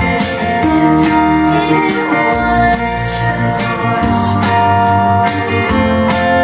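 Instrumental stretch of a pop song, guitar over a steady beat, played back through Gale Model 4 two-way floor-standing speakers.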